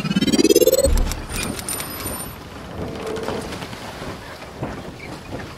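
Logo-intro sound effect: a whoosh rising in pitch through about the first second, ending in a low boom, followed by a fainter crackling shimmer with brief high ringing tones.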